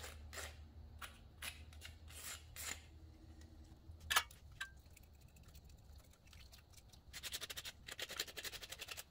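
Razor blade scraping old head gasket residue off the aluminium cylinder deck of a Briggs & Stratton mower engine, in short faint strokes. There is a sharp click about four seconds in and a fast chattering run of scrapes near the end.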